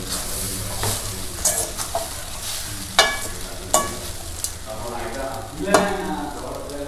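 A metal spoon stirring and scraping aval upma (flattened rice flakes) around a metal kadai, with a few sharp clinks of the spoon against the pan, the loudest about three and six seconds in.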